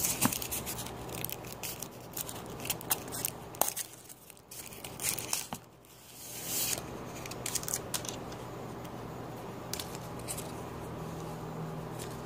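Paper wrapper being torn and slid off a plastic drinking straw: crinkling and rustling with many small sharp clicks. It is busiest in the first half, with a longer tearing rustle about six seconds in, then only a few scattered clicks.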